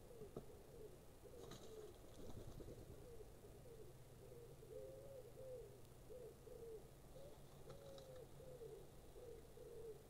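Faint low cooing from a pigeon: a run of short, soft, arching notes repeating about once or twice a second, over a steady low hum, with a brief rustle of clicks about two seconds in.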